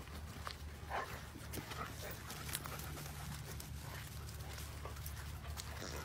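A German Shepherd making a few brief sounds, over a steady low hum and scattered light clicks.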